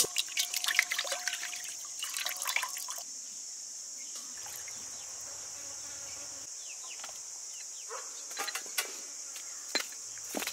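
Water splashing and sloshing in a stainless steel basin as a squid is rinsed by hand, busy for the first three seconds, then a few drips and light taps. A steady high-pitched hiss sits behind throughout.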